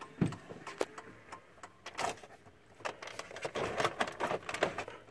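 Keys jangling on their ring with scattered light clicks as the ignition key is turned in the steering column. There are irregular small clicks and rattles throughout, and no engine running.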